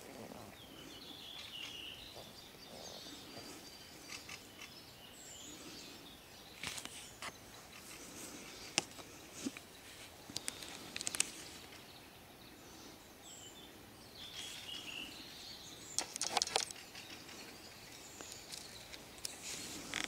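Songbirds singing faintly: a short warbling phrase about a second in and again about fourteen seconds later, over a steady outdoor hiss. Scattered sharp clicks and snaps come in the middle and at about sixteen seconds, and they are the loudest sounds.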